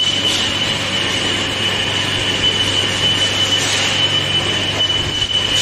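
Lathe running with a drill cutting into a gearbox housing, giving a steady high-pitched squeal over a low machine hum.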